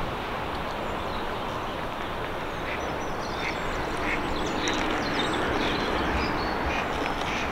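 Scattered short animal calls, several a second, over a steady rushing hiss.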